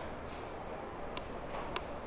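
Quiet room tone with the faint rub of hands massaging thighs through trouser fabric, and two brief high-pitched clinks about half a second apart.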